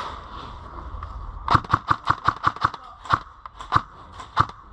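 Airsoft gun firing single shots: a quick string of about seven sharp cracks starting about a second and a half in, then four more spaced-out shots.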